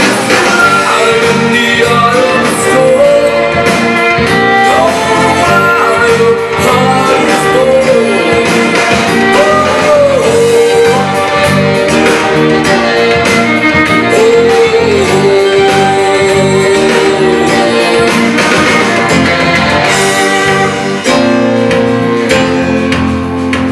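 Live folk-pop band music without vocals: violins play a melody with sliding notes over cello, keyboard and drums.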